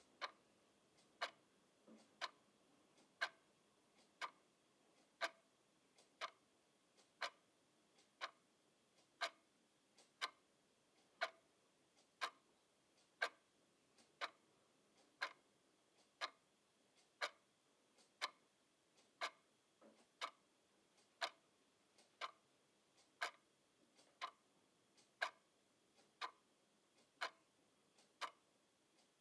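Clock ticking steadily, a sharp tick about once a second.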